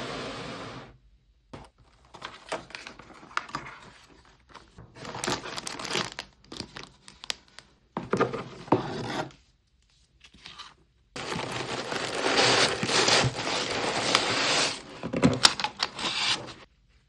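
Parcel packaging being torn open and crinkled by hand, with scraping and rubbing as the wrapping and box are handled. It comes in several bursts broken by short silences, the longest and loudest stretch coming in the second half.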